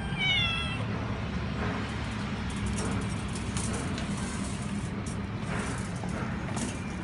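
Persian cat meowing: one clear meow falling in pitch right at the start, then fainter calls later, over the steady hum and hiss of a running hair dryer.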